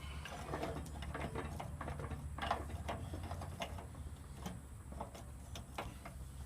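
Irregular light clicks and knocks of metal hydraulic cylinder parts being wiggled and worked into place by hand.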